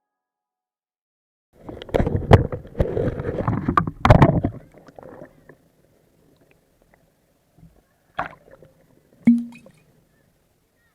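Water splashing and sloshing with several sharp knocks for about three seconds, then two short knocks later on.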